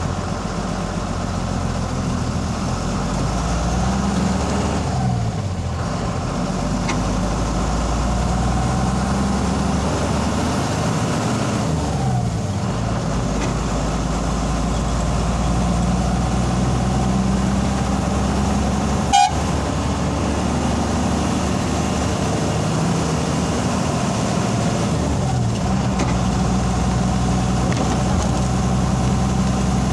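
Steady running noise of a motor vehicle travelling along a highway, its engine note dipping and rising a few times. A single short horn toot sounds about two-thirds of the way through.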